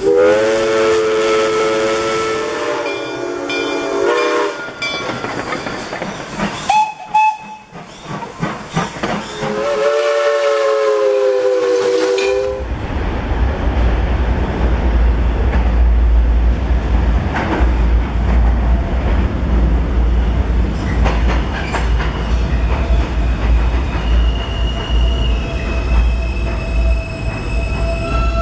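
A steam locomotive's chime whistle sounds a long blast, a short one and another long blast. Then, after a sudden change, a loud, steady low rumble as a New York City Subway F train pulls into an underground station, with a few thin high whining tones near the end.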